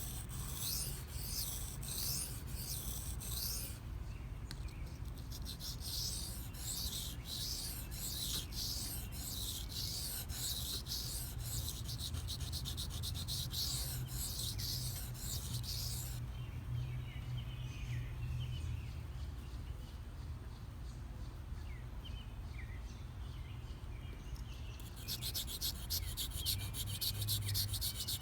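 S30V steel blade of a Benchmade Mini Barrage being stroked across a coarse 320-grit Shapton Pro waterstone: a steady run of gritty scraping strokes, raising a burr along the edge. The strokes stop for several seconds past the middle and start again near the end at a quicker pace.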